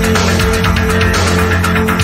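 A 1980s post-punk / goth / new wave track from a club DJ mix: a steady drum beat over heavy bass and a held note, with no singing.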